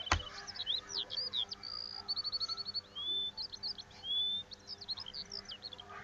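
Small songbirds chirping, with short high whistles, a quick even trill of about ten notes a little after two seconds in, and two rising whistles around three and four seconds. A single sharp click at the very start.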